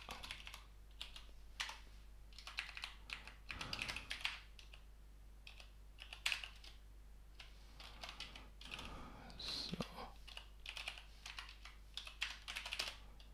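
Typing on a computer keyboard: faint keystroke clicks in irregular bursts with short pauses between them.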